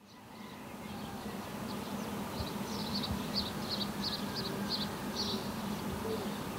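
Town ambience fading in: a steady low hum with small birds chirping again and again over it.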